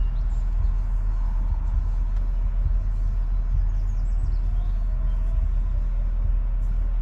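Steady low rumble of a truck driving, heard from inside the cab.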